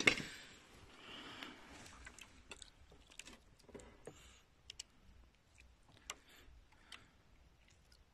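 Handling noise on the phone's microphone: a sharp rubbing knock as it is pressed against cloth, then a brief rustle about a second in and scattered faint clicks and light knocks.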